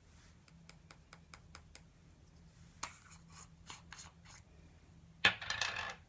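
Makeup brush rubbing and tapping, a string of quick soft strokes and taps, with a louder scraping rub lasting under a second about five seconds in.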